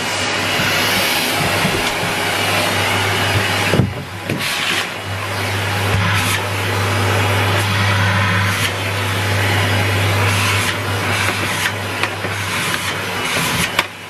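Numatic Henry canister vacuum cleaner running steadily, a constant motor hum and rush of air, with a brief dip about four seconds in and a few light knocks.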